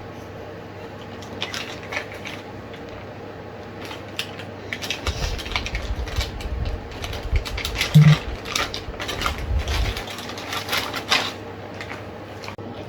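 Packaging being handled and opened: scattered rustling and clicking, with a low rumble of handling from about five to ten seconds in and a single thump about eight seconds in.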